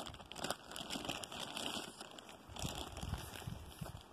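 Irregular crinkling and crackling of a food wrapper being handled, with a few soft low bumps in the second half.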